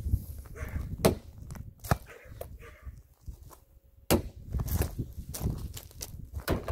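Irregular sharp knocks and clunks over a low rumble, the loudest about a second in, with a quieter stretch in the middle.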